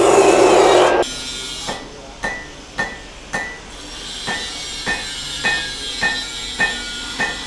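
Wood-sawing noise that stops about a second in. It is followed by about ten sharp hammer blows on metal, roughly two a second, each with a brief high ring.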